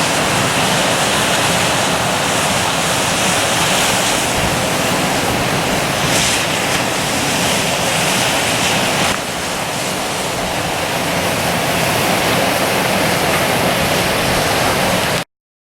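Ocean surf breaking and washing on the shore as a steady rush, with some wind. About nine seconds in it drops a little quieter, and near the end it cuts off suddenly.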